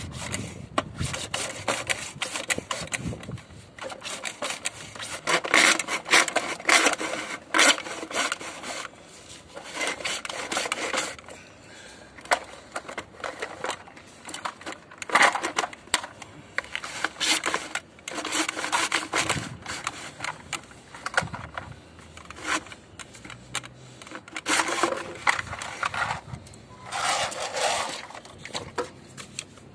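Hand mitre saw cutting through white plastic cable trunking: rasping back-and-forth saw strokes in several runs, with short pauses between them.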